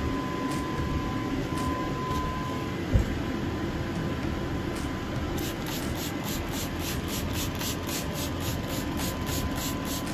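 Hand trigger spray bottle squirted over rusty sheet metal in quick repeated pumps, about four short hissing sprays a second through the second half, over steady background noise. One sharp thump about three seconds in.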